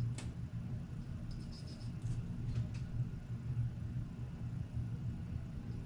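A steady low rumble, with a few faint light clicks in the first three seconds.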